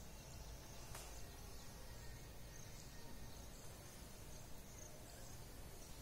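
Quiet room tone with faint, high insect chirring, and a single light click about a second in.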